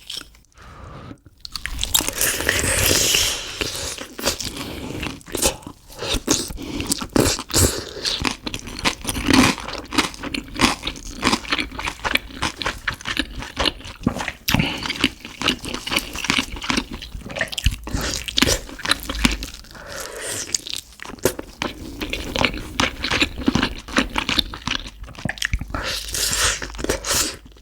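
Close-miked crunching and chewing of crispy fried chicken skin and batter, with quick irregular crackles bite after bite.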